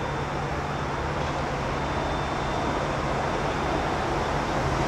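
Distant diesel-hauled passenger train of EMD F-unit locomotives moving slowly, heard as a steady low engine rumble under a haze of outdoor noise.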